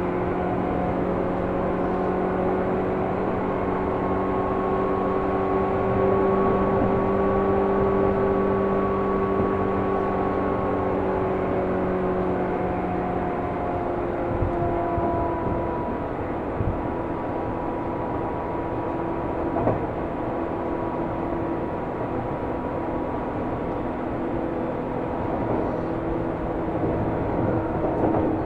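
Seibu New 2000 series electric commuter train running, heard from inside the carriage: a steady rumble with several humming tones that drift slightly in pitch, one low hum dropping away about halfway through.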